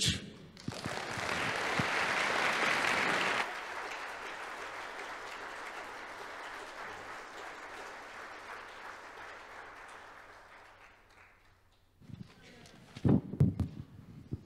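Congregation applauding, loudest for the first three seconds, then dropping suddenly and dying away over the next several seconds.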